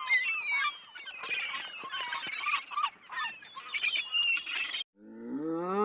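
A flock of birds calling over one another, with many quick overlapping chirps and whistles, cutting off abruptly near the end. Just after, a deep, drawn-out animal call begins.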